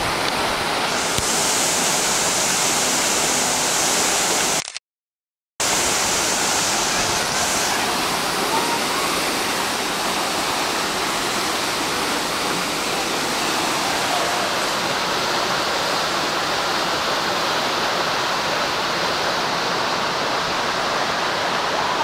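Waterfall pouring into a rock plunge pool: a steady, loud rush of falling water. It drops out completely for about a second around five seconds in, then carries on unchanged.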